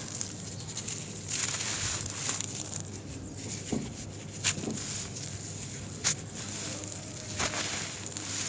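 A packed ball of sand and cement crumbling between the fingers, grains and crumbs pouring down onto loose sand, with a few sharp crunches standing out.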